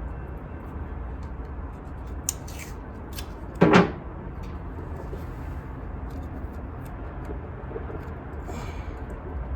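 Handling noises while working on an engine: a few light clicks and one short, loud knock about three and a half seconds in, over a steady low hum.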